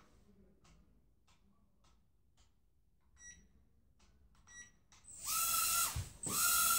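Mini quadcopter drone's propellers spinning up about five seconds in with a loud whirring hiss and a steady high whine as it lifts off the floor. The sound cuts out briefly, then spins up again. Before that there are only faint clicks and a couple of short electronic beeps.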